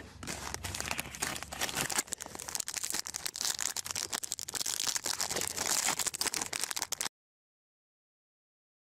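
Plastic trading-card pack wrapper crinkling and tearing as the pack is opened by hand, a dense run of crackles. About seven seconds in it cuts off to dead silence.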